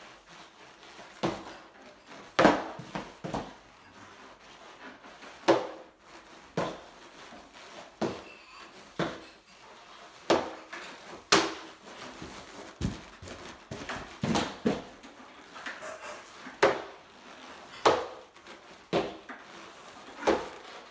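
A wooden board knocking against the floor as a person in boots hops and twists on it: a run of sharp, irregular knocks and thumps, about one every second.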